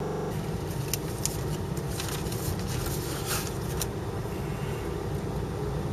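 Steady low engine and road rumble of a car driving, heard from inside the cabin, with a few short sharp clicks and rattles in the first four seconds.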